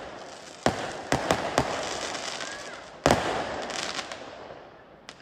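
Fireworks going off: a series of sharp bangs, the loudest about three seconds in, each trailing into a crackling hiss that slowly dies away.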